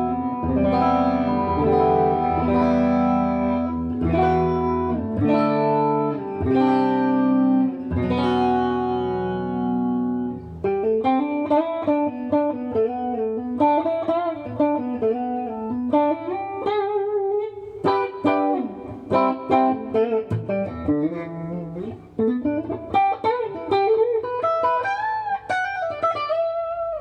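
Electric guitar with Kiesel Polarity active pickups in the middle position, both full humbuckers, played clean through a Boss Katana amp with chorus, reverb and delay. Ringing chords for about ten seconds, then a single-note lead line with bends and vibrato.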